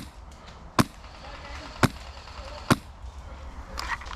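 Airsoft gun firing single shots: four sharp cracks, about a second apart.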